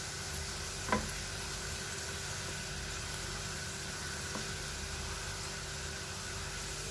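Sliced onions frying in hot oil in a nonstick kadai, sizzling steadily as they are stirred with a silicone spatula, with turmeric and salt just added. One sharp tap about a second in.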